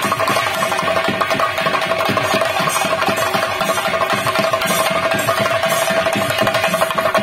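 Fast, continuous drumming with a steady high tone held over it, loud and unbroken.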